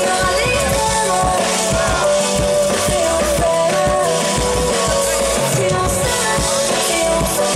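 Live pop music from a band: drum kit with a regular kick drum, keyboards, and a woman singing into a microphone.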